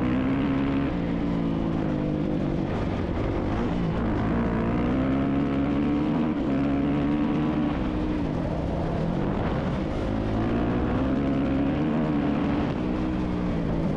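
A 450-class dirt bike's engine under way, its pitch climbing and dropping again several times as the rider opens and closes the throttle.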